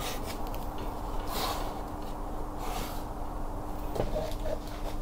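Light handling sounds: a Raymarine unit slid and shifted over a plastic tool case, two soft swishes and a faint knock about four seconds in, over a steady low hum.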